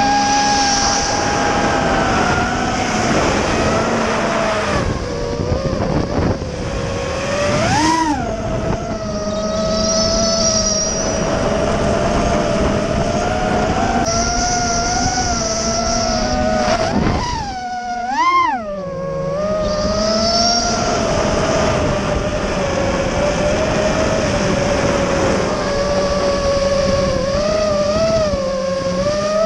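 Racing quadcopter's four brushless motors (XNova 2204 2300KV, on 4S) whining steadily in flight. The pitch rises sharply and falls back about eight seconds in, then again about eighteen seconds in after a brief throttle drop.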